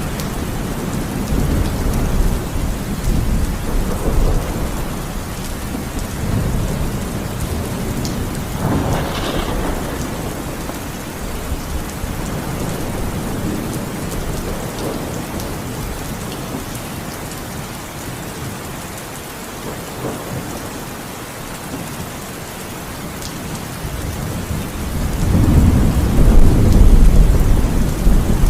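Heavy rain falling steadily, with rolls of thunder rumbling underneath; a burst of thunder comes about nine seconds in, and a long, louder rumble builds near the end.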